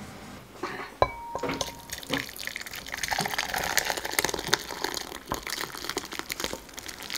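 Thick egg-drop soup with tomato being poured from a ladle into a ceramic bowl, splashing and dripping. The ladle clinks against the bowl about a second in, with a short ring.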